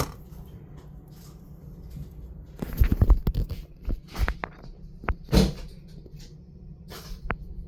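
Handling noises as the spider's container is opened to take a cricket out: a cluster of knocks and rattles about three seconds in, then a few single sharp clicks and taps.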